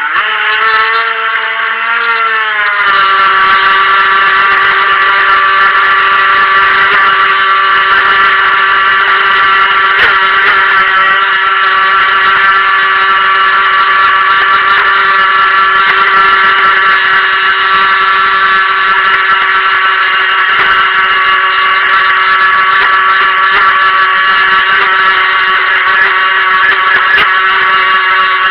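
The stock brushed electric motor of a Helion Rivos RC monohull boat, running with a high whine full of overtones. It wavers at a lower pitch for the first few seconds, steps up in pitch and loudness about three seconds in, then holds steady.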